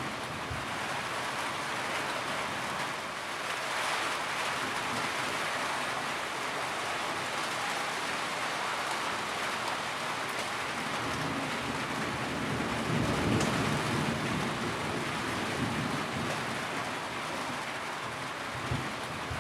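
Steady rain falling, an even hiss, with a low rumble of thunder swelling about two-thirds of the way through and fading away.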